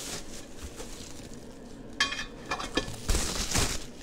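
Bubble wrap and plastic crinkling as aluminum T-track lengths are handled and lifted out of a cardboard box. About two seconds in, the metal knocks with a short ring, followed by a couple of clicks. Near the end there is a louder burst of rustling with a thump.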